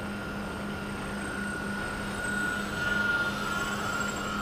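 Twin brushless electric motors and propellers of a Dynam Skybus DC-3 radio-control model plane in low flight: a steady whine over a hiss. The whine grows louder and shifts a little in pitch about halfway through.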